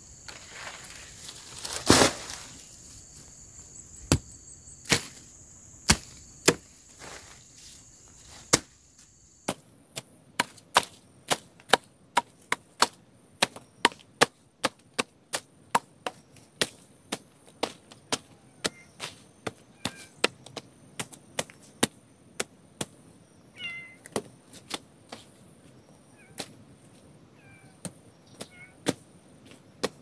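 A machete hacking weeds and undergrowth, sharp strikes coming about twice a second through most of the stretch. A steady high insect drone stops about nine seconds in.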